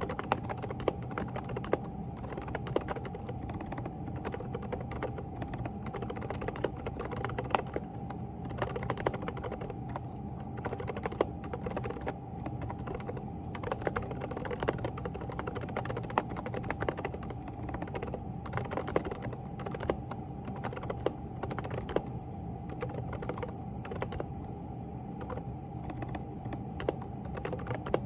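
Typing on a Groovestone GV10 mechanical keyboard with hand-lubricated silent Coral switches: a continuous patter of soft, muted key strokes with now and then a louder one, over a steady hum.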